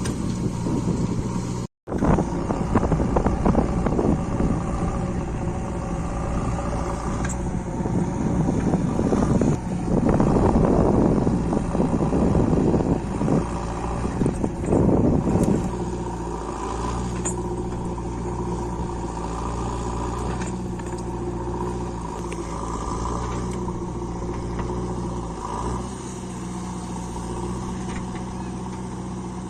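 Diesel engine of a JCB 3DX backhoe loader running steadily. It goes louder and rougher for several seconds in the middle, then settles back to an even run.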